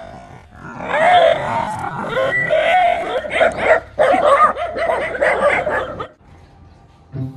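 A dog vocalising in a run of short, pitched calls that rise and fall, for about five seconds, stopping about a second before the end.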